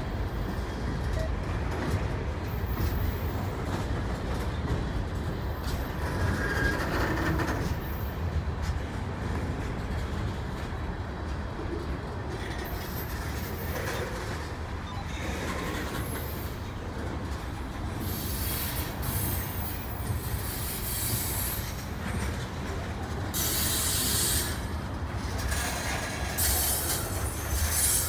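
CN freight train cars (hoppers, tank cars and boxcars) rolling past: a steady low rumble of steel wheels on rail, with several bursts of high-pitched hissing screech from the wheels in the second half.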